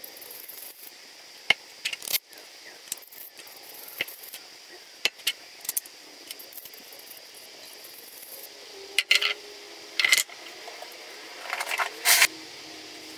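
Steel bolts, nuts and washers clicking and clinking as they are handled and fitted into plastic leveling-foot pads, with a few louder clinks in the last few seconds.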